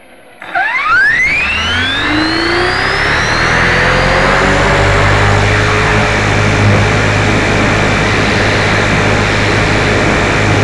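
Motor of a small radio-controlled car starting suddenly about half a second in and spinning up with a steeply rising whine, then running at full speed with loud, steady road and motor noise.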